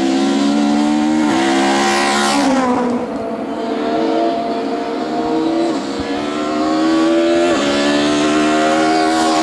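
Two touring race cars accelerating hard uphill one after the other, engines revving high and dropping back at each upshift. The first passes with a falling pitch about two seconds in. The second climbs through two upshifts and passes near the end.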